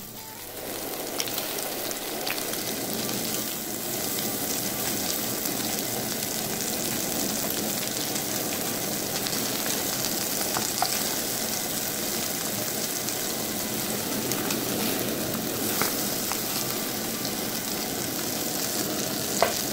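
Ground-beef burger patties sizzling steadily as they fry in fat in a nonstick pan, with a few light taps and scrapes of a wooden spatula as the patties are turned over to cook the second side.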